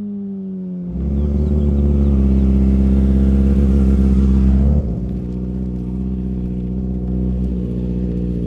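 Motorcycle engine running at a steady, unchanging speed, getting louder about a second in and dropping to a lower level around five seconds in.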